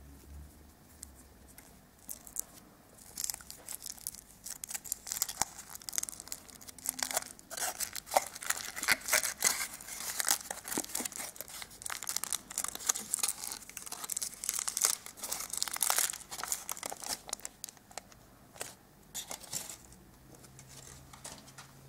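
Thin foil wrapper being torn and peeled off a chocolate egg: a long, irregular run of crinkling and tearing that starts a couple of seconds in, is loudest in the middle and dies away near the end.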